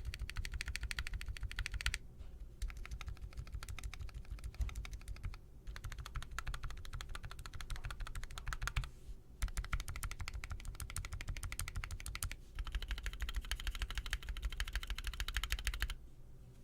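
Fast typing on a custom mechanical keyboard: a dense run of key clicks, broken by short pauses every few seconds, that stops shortly before the end.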